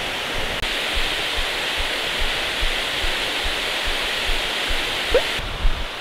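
Mountain stream rushing over rocky cascades, a steady full sound of water running high, which the speaker puts down to frequent recent showers. The rush drops away shortly before the end.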